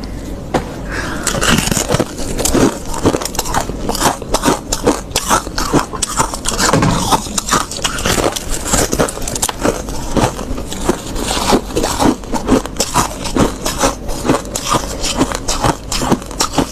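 Soft freezer frost being bitten and chewed close to the microphone: dense, irregular crunching and crackling, with a faint steady low hum underneath.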